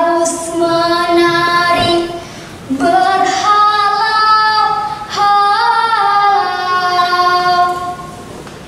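A young girl singing solo in long held notes, three sung phrases with short breaths between them.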